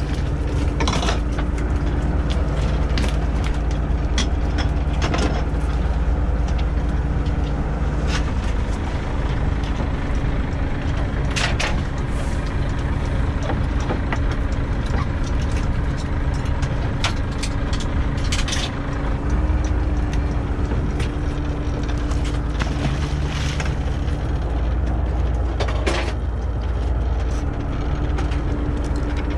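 Steady drone of a small fishing boat's engine and longline hauler running while the longline is hauled aboard, its pitch shifting slightly a little past halfway. Scattered sharp knocks and clanks of gear on the metal rail and deck.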